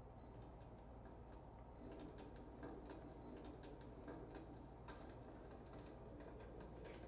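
Crackling wood-fire sound effect played by the Modern Flames Orion Slim electric fireplace: faint, irregular soft clicks and pops, growing a little busier about two seconds in.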